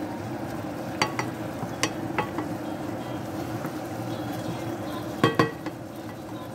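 Chicken pieces and diced red onion sizzling in oil in a stainless steel pan, being stirred with a wooden spatula. The spatula knocks against the pan several times, the loudest knocks about five seconds in.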